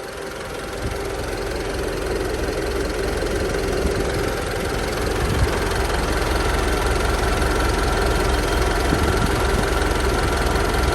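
Mitsubishi Triton diesel engine idling steadily, a little louder after about a second.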